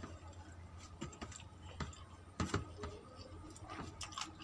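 Eating by hand: chewing, and fingers mixing rice on a plate, heard as a scatter of small clicks and smacks, the loudest about two and a half seconds in.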